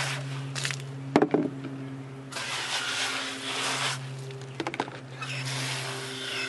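Water spraying from a garden-hose spray nozzle into a plastic dishpan, in two runs with a few plastic clicks and knocks of dishes and a lid being handled between them. A steady low hum runs underneath.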